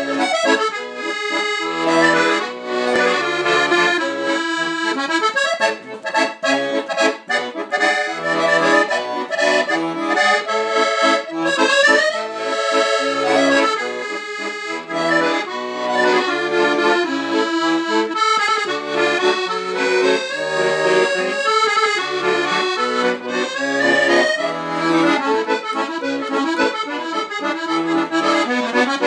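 Fratelli Crosio chromatic button accordion playing a musette waltz solo: quick, busy right-hand melody lines over regularly pulsing bass notes.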